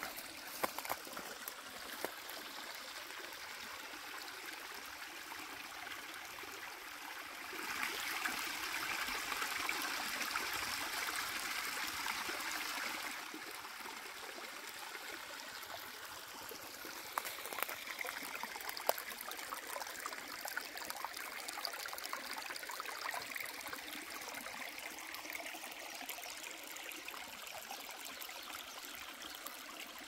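Small, shallow stream trickling and gurgling over stones as a steady water rush, louder for about five seconds in the first half. A few light knocks come in the second half.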